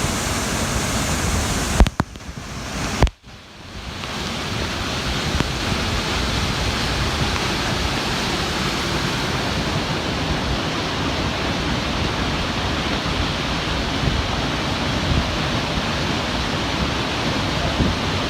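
Steady rush of flowing water, like a stream or waterfall running after rain. It drops out suddenly with a click about two seconds in, clicks again about a second later, and swells back up within about a second.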